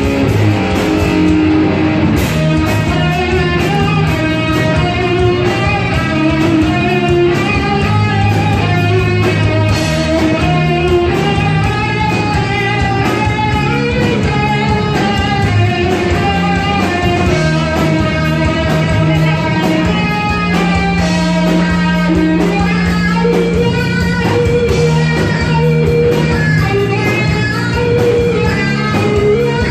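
Rock band playing, with electric guitar to the fore over bass and drums.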